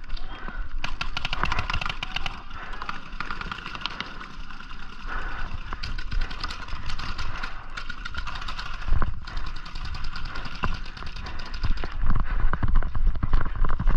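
Paintball markers firing in rapid strings, many sharp pops a second. Heavy running footfalls come in toward the end.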